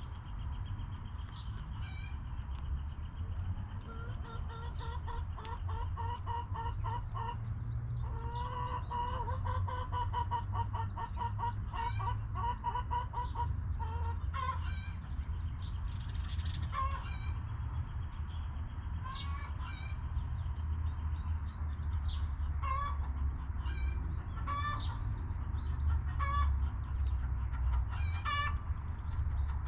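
Backyard chickens clucking, with short calls scattered throughout and a long run of rapid repeated clucks from about four to thirteen seconds in. A steady low rumble runs underneath.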